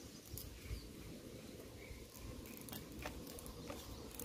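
Faint, scattered clicks and scratches of thin steel wire cable being worked by hand, its strands being split apart.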